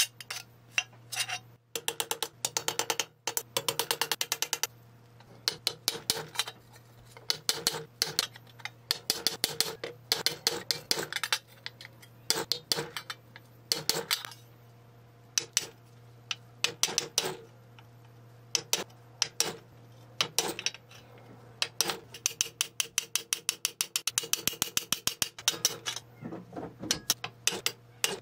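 Rapid trains of sharp metallic clicks, like a ratchet turning, come in bursts of a second or two over a faint steady low hum.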